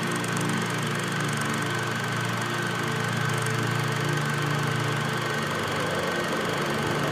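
A steady, low mechanical hum with a fast, even flutter, like a small machine running, with a thin steady tone above it.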